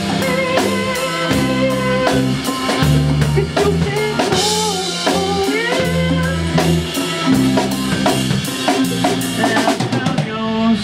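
Pop-punk band playing live, an instrumental passage: a drum kit keeping a steady beat under guitar and bass.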